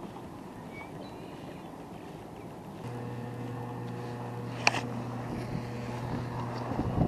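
A boat motor starts about three seconds in and runs with a steady hum. A single sharp click sounds about a second and a half later.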